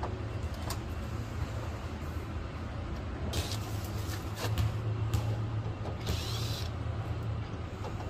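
A cordless screwdriver running in short spurts, first a little after three seconds in and again for longer around six seconds, over a steady low hum.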